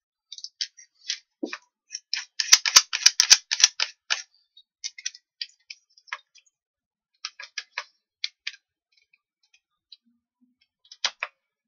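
Light clicks and taps of tools and small hard objects being handled, with a quick run of sharp clicks about two to four seconds in and scattered ones after.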